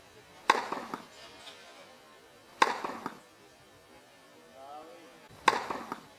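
Tennis ball struck by a racket three times, two to three seconds apart: each a sharp pock with a brief ring of the strings.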